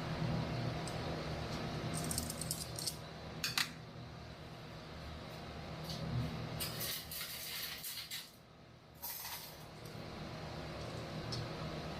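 Metal kitchenware clinking and clattering in two spells, about two seconds in and again past the middle, over a steady low hum.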